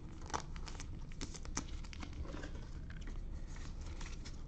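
Faint crinkling of plastic card sleeves and packaging, with scattered small clicks, as gloved hands handle trading cards, over a low steady hum.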